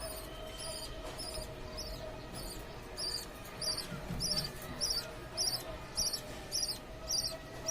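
A parrot giving short, high-pitched squeaky chirps in a steady rhythm of about two a second, growing louder about three seconds in.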